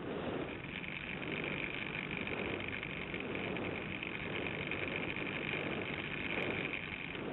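Model airplane's motor and propeller running steadily in flight, a continuous high whine over the rush of air past the plane-mounted camera.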